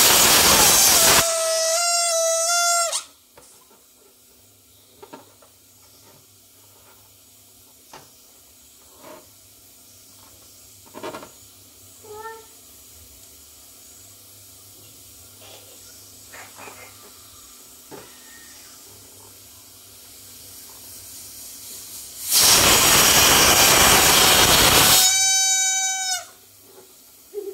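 Air let out of an inflated rubber balloon through its neck, twice: first a loud rush of air, then, as the neck is stretched, a high steady squeal lasting a second or two. Faint handling clicks and rustles fall between the two releases.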